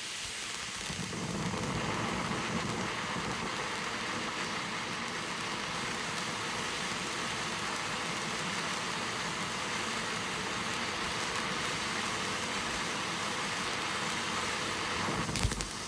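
A steady hiss, then sharp firework crackles start near the end.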